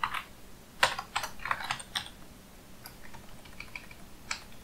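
Computer keyboard keys clicking irregularly as a command is typed, quickly in the first two seconds and more sparsely after.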